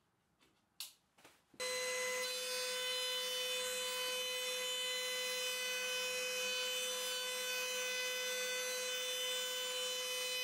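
A few small clicks and knocks, then about a second and a half in a table-mounted router starts abruptly and runs at a steady high whine while a hardwood strip is fed along the fence past the bit.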